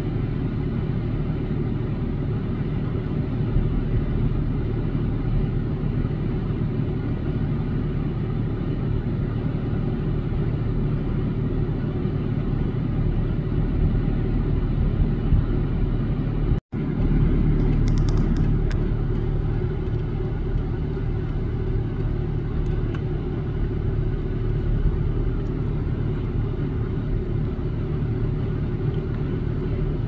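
A steady low rumble that cuts out for an instant a little past halfway.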